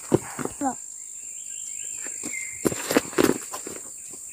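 Insects drone steadily at a high pitch, with a few sharp footstep knocks on a gravel track in two clusters, near the start and about three seconds in.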